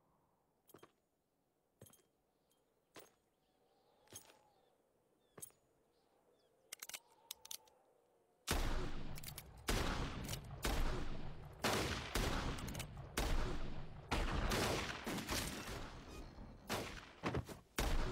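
Faint sharp clicks about once a second, then, about eight and a half seconds in, a sudden burst of rapid revolver gunfire, many shots overlapping, several a second.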